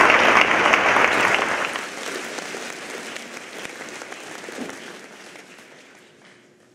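A large audience applauding, loud at first, then dying away gradually from about two seconds in until it has nearly faded out near the end.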